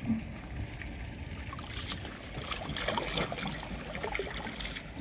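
Water sloshing and trickling around a small boat, with scattered knocks and rustles from hands working a fishing net.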